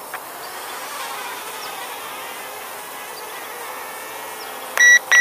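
Eachine E70 Mini toy quadcopter buzzing faintly in flight overhead, its whine drifting up and down in pitch as the throttle changes. Near the end come two short, loud, high beeps.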